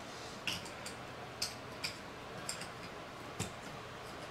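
Light, hard plastic clicks and taps, about six of them at irregular intervals, as a small toy action figure and its plastic battle controller are handled and snapped together.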